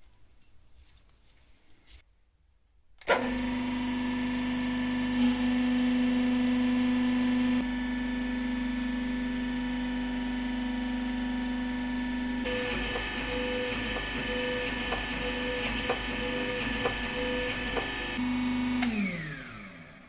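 Electric motor and pump of a hydraulic press starting with a click about three seconds in and running with a steady hum while the press compresses a crucible mould. Its tone shifts twice along the way. Near the end it is switched off and winds down with a falling pitch.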